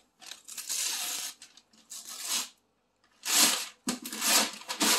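Gift-wrapping paper being torn off a cardboard box, in several bursts of ripping with a short pause a little after halfway.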